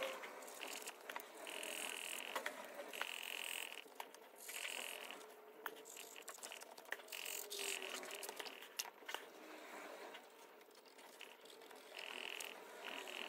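Faint scattered clicks and scratches of a small paintbrush and swab being worked over a hard, textured sculpted model, mixed with repeated short high-pitched buzzes about half a second long.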